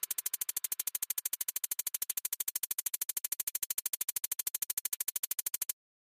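Electronic pulsing sound: a rapid, perfectly even stream of clicks, about a dozen a second, that cuts off suddenly near the end.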